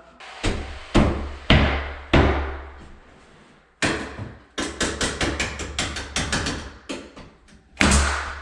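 Hammer nailing wooden closet shelving. A few heavy single blows come first, then a quick run of lighter taps about four or five a second, and another heavy blow near the end.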